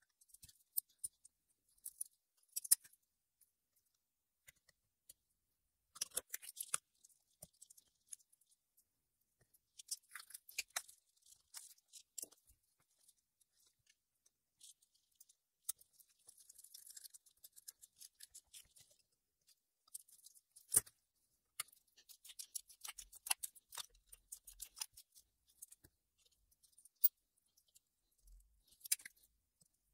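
Scattered small metallic clicks, taps and clinks in short clusters from pliers and steel parts as new Valvetronic intermediate-lever torsion springs are compressed and fitted, with a brief soft rustle of gloved hands partway through.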